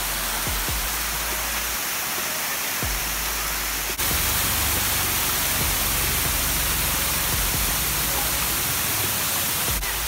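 Rushing water of a waterfall and a shallow stream over rock, a steady roar of water noise, a little louder about four seconds in. Background music plays under it.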